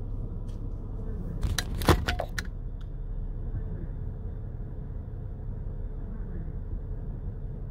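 Low steady rumble of a minivan's engine and cabin noise, heard from inside as the van creeps forward into the wash bay. A brief cluster of sharp clicks and a knock comes about two seconds in.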